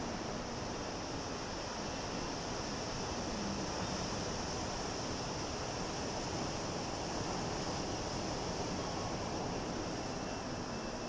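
Sea waves washing steadily: a continuous hiss of surf with no single crash standing out.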